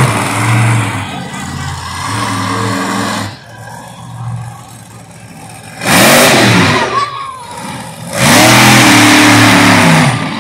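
Monster truck engine revving hard in repeated bursts, its pitch rising and falling as the throttle opens and closes; the loudest bursts come at the start, about six seconds in, and again from about eight seconds in.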